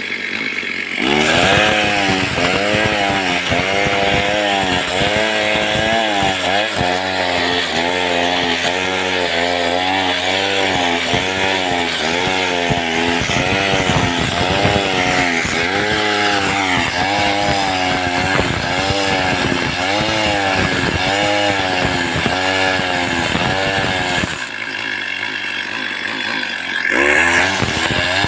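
Stihl chainsaw cutting into a jackfruit tree, its engine pitch dipping and recovering about once a second as the chain bites under load. Near the end it eases off to a lower, quieter run for a few seconds, then revs up again.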